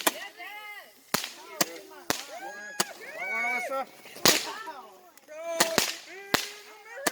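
Fireworks going off in a string of sharp cracks, about ten reports at irregular intervals. Between the cracks are overlapping high tones that rise and fall.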